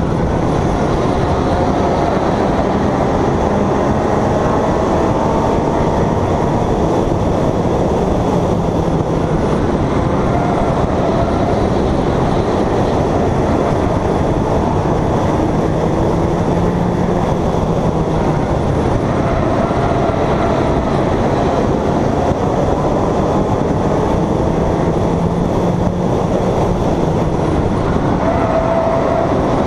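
Stock-car engine running under load, heard from a camera mounted outside on the car, with a dense steady roar of wind and road noise. The engine note slowly rises and falls through the lap.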